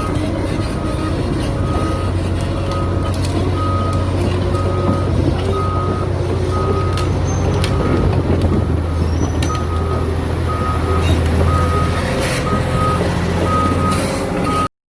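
Caterpillar 390D excavator's diesel engine running with a steady low drone, while its travel alarm beeps a single high tone roughly once a second, the warning that sounds as the machine moves on its tracks. Scattered sharp clicks come through over it.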